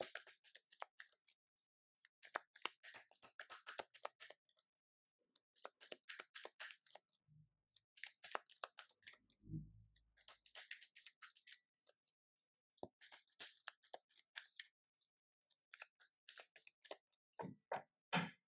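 A deck of tarot cards being shuffled by hand: short bursts of crisp flicking clicks, repeated every second or two, with a soft low thump about halfway through.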